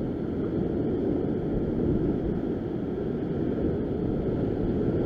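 Rough surf breaking and washing over a rock ledge, with wind buffeting the microphone: a steady low rumble with no separate events.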